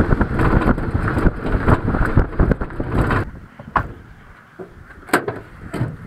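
Pickup truck rolling over a dirt lot with a dense rumble and many small rattles from the load in its bed, then stopping about three seconds in. A few separate sharp knocks and clicks follow.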